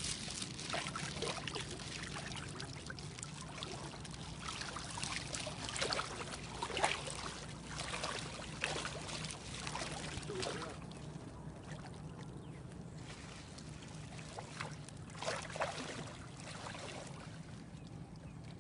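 Lake water splashing and trickling in short, irregular bursts, dying down for a few seconds about two-thirds of the way through, over a steady low hum.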